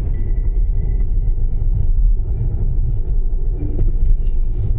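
Steady, loud low rumble of road and engine noise inside a moving car's cabin.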